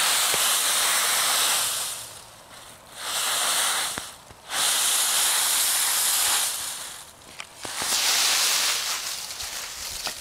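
Dry autumn leaves rustling as a small puppy leaps and burrows through a leaf pile, in four bursts of one to two seconds with short lulls between.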